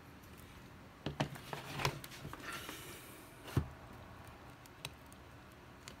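Small clicks and taps of hands working on an opened laptop's internal cable connectors and parts, with a brief rustle in the middle; the sharpest click comes about three and a half seconds in.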